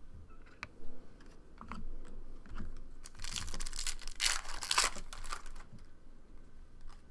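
Trading cards and a foil pack wrapper being handled: scattered light clicks, then a longer crinkling rustle from about three to five seconds in.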